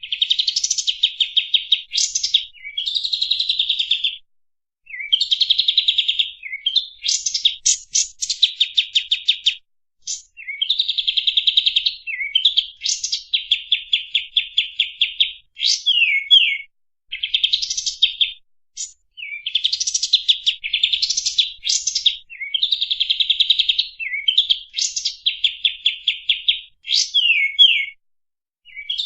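Kapas tembak bulbul singing: fast, closely spaced trills of repeated clear notes, phrase after phrase with short pauses between.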